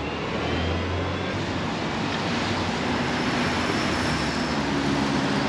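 Street traffic on rain-wet pavement: passing vehicles' engines and the hiss of tyres on the wet road, a steady noise that swells slightly as a vehicle draws close.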